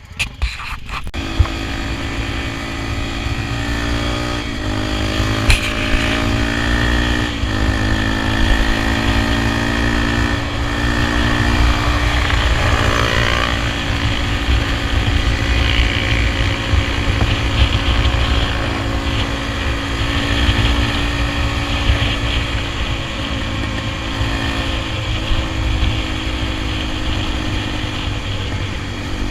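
Honda XR 250 Tornado's single-cylinder four-stroke engine running under way, its note stepping up and down in pitch several times as the rider works the throttle and gears, over a steady low rumble.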